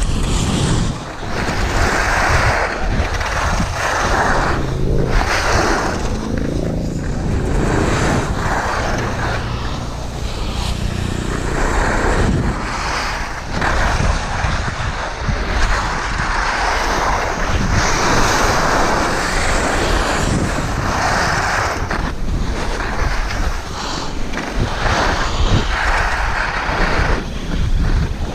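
Wind rushing over the microphone of a skier going downhill, with skis hissing and scraping over packed piste snow in irregular swells as the turns come and go.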